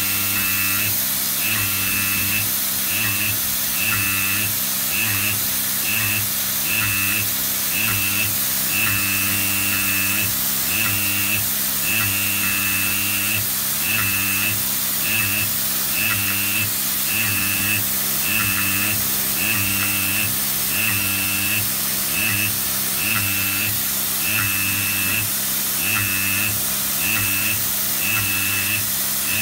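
Pneumatic marking chuck's air-driven vibrating pin buzzing against a steel workpiece as it marks letters, starting and stopping in short spells of about half a second to a second and a half, one spell per stroke. Underneath runs a steady hiss and hum.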